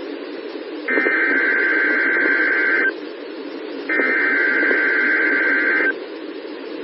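The second and third bursts of an Emergency Alert System SAME digital header, heard over NOAA Weather Radio: raspy two-tone data screeches about two seconds long, a second apart, with radio hiss between them. They open the station's required weekly test.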